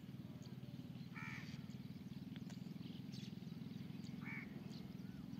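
Two short, harsh bird calls, one about a second in and another about four seconds in, with a few faint chirps. Under them runs a steady low hum.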